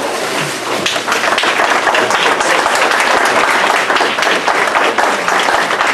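A crowd applauding loudly, a dense patter of many hands clapping, with voices calling out among the claps.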